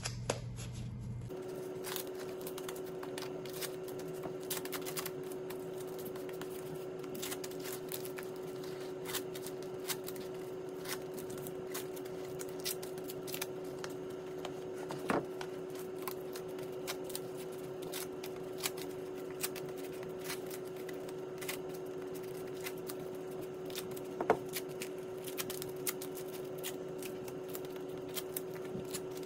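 Masking tape and gloved hands working over a leather sneaker's upper: many irregular light clicks, taps and rustles, a few louder ones, over a steady low hum.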